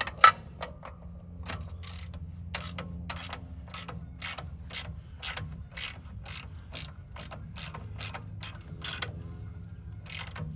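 Socket ratchet clicking in a steady run, about two and a half clicks a second, as the track tensioner on a Vermeer SC48TX stump grinder is backed off to relieve the track tension.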